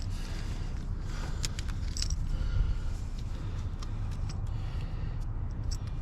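Light metallic clinks and taps of hand tools being handled, scattered and irregular, over a steady low rumble.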